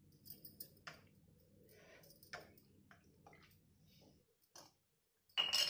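Cooking oil poured into an empty nonstick kadhai, giving faint scattered clicks and ticks over a low hum. A short, louder clatter comes near the end.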